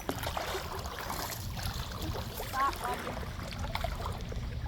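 Creek water running under a steady low rumble, with scattered faint clicks and scuffs and a short wavering squeak about halfway through.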